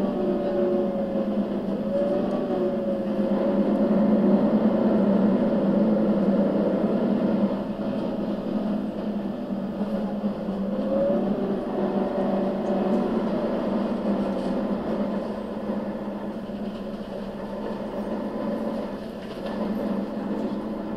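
Mercedes-Benz O 530 GL CapaCity articulated bus's diesel engine running while the bus drives, heard from inside the passenger cabin. The engine note rises as it accelerates, louder for a few seconds before easing off about eight seconds in, then climbs again around ten seconds in.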